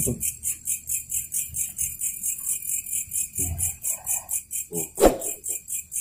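Small bells jingling in a steady rhythm, about five shakes a second. A short low vocal sound comes a little after three seconds, and a sharp knock about five seconds in.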